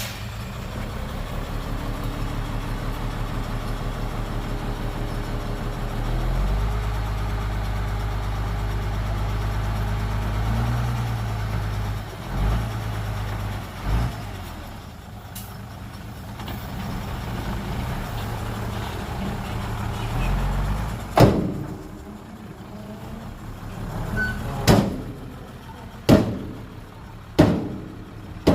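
Heavy truck diesel engine running, stepping up in pitch and load about six seconds in. Near the end, several loud, sharp bangs, spaced a second or so apart.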